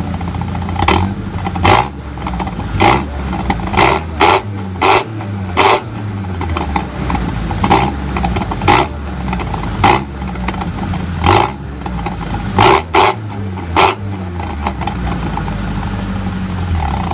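Mitsubishi Colt T120SS pickup's engine running through an aftermarket Suos exhaust with a rough, snoring note, given about a dozen short throttle blips, some in quick pairs, each a sharp loud bark from the exhaust.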